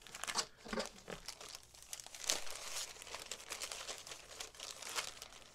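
Packaging being crinkled and handled, a string of irregular crackles and rustles as hands work into a wrapped parcel from a mail-order box, with one louder crackle midway.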